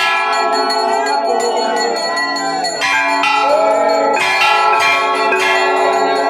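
Temple bells ringing continuously for aarti. Many metallic tones overlap and linger, with fresh strikes every second or so.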